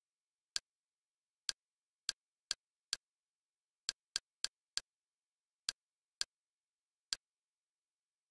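Twelve short, sharp clicks at an uneven pace, some in quick runs and some a second apart: menu navigation click sounds from the Kodi media-center interface as the home menu and its submenu are scrolled.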